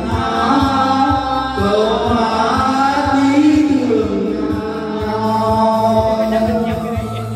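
A group of men and women singing a Vietnamese song together, one woman's voice amplified through a microphone, over backing music with a steady bass beat.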